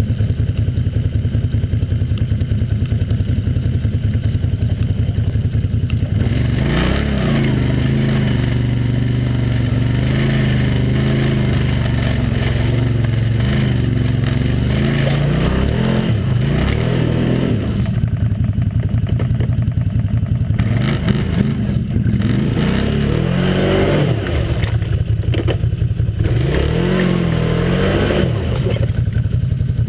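Can-Am Outlander 800 ATV's V-twin engine idling, then revved hard again and again from about six seconds in, the pitch climbing and dropping with each burst, as the stuck quad tries to pull itself free. There is a short easing-off in the middle, and it settles back towards idle near the end.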